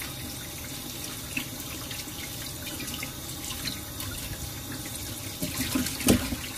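Kitchen tap water running into a steel bowl in a stainless steel sink while raw chicken thighs are rubbed and rinsed by hand to wash off their slime, with small splashes throughout. One louder splash about six seconds in.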